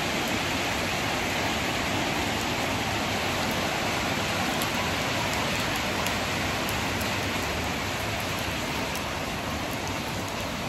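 Steady rain falling on wet paving and potted plants, an even unbroken hiss.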